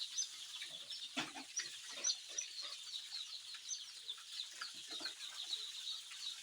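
A crowd of day-old chicks peeping continuously, many short high chirps overlapping. One brief knock about a second in.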